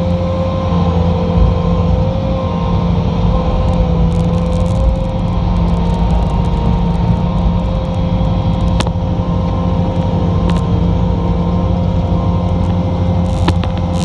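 Bobcat T590 skid steer's diesel engine running steadily under load as it pushes soil, heard from the cab, with a steady whine riding over the engine note that shifts slightly in pitch. A few light clicks or clanks come through in the second half.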